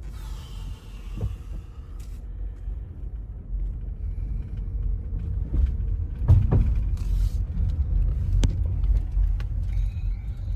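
Car driving slowly, its road and engine rumble heard from inside, with a few knocks from the car, the loudest about six and a half seconds in and another about eight and a half seconds in.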